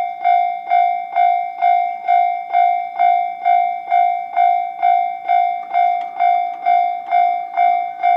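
Japanese railway level-crossing warning bell ringing: an electronic 'kan-kan' tone repeated evenly about twice a second, each strike ringing briefly, signalling that a train is approaching and the crossing is closing.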